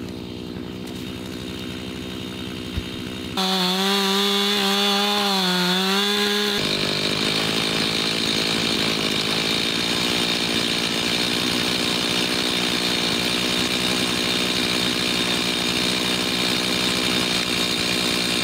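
Two-stroke chainsaw engine running. About three seconds in it turns abruptly louder with a wavering pitch for a few seconds, then settles into a steady, even run.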